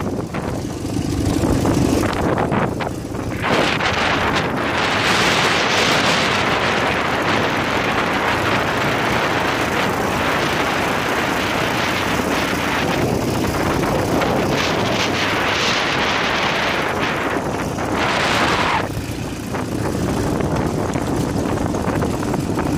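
Ural motorcycle riding along a dirt forest track, its flat-twin engine running under heavy wind buffeting on the microphone. The level dips briefly a few times.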